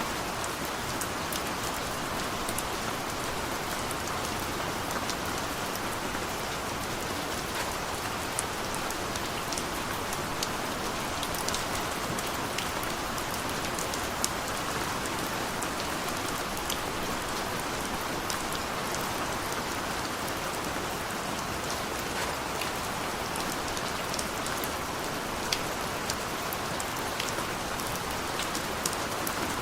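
Heavy rain falling steadily, with many sharp drop ticks scattered through it.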